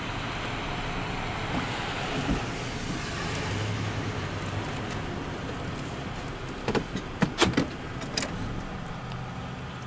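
Steady outdoor rumble of running vehicle engines with street noise, and a quick run of four or five sharp knocks about seven to eight seconds in.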